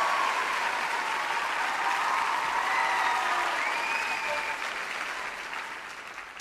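Audience applauding, with a few cheers rising above the clapping; the applause fades away gradually toward the end.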